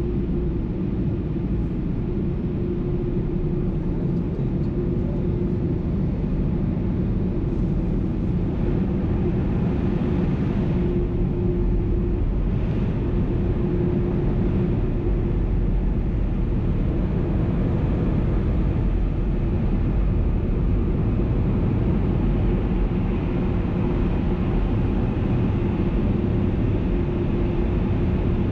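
Touchless automatic car wash machinery heard from inside the truck's closed cab: a loud, steady rumble with a constant hum. There is a brief rise of hiss about ten seconds in.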